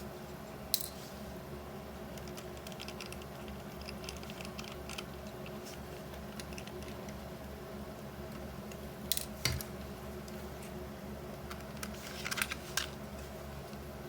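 Small screwdriver and tiny screws clicking and ticking against a dashcam's plastic housing as the screws are backed out: scattered light clicks, with a few sharper ones about a second in, around nine seconds in and around twelve seconds in, over a steady low hum.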